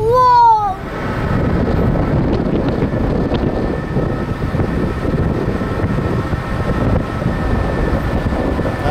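A short, loud, pitched cry that rises and falls at the very start, then the steady rumble and rush of a car driving, with wind on the microphone.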